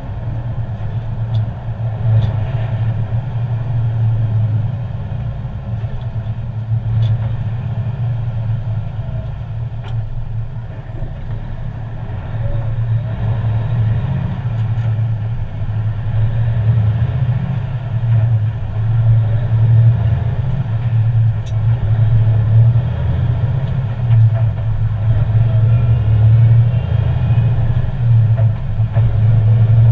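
Semi truck's diesel engine and road noise heard from inside the cab while driving: a steady low drone that grows a little louder in the second half.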